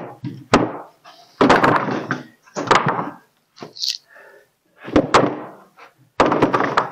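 Freshly sawn pine boards knocking and thudding against each other and the sawmill deck as they are moved and stacked. There are about half a dozen separate wooden thunks at irregular intervals, with quiet gaps between them.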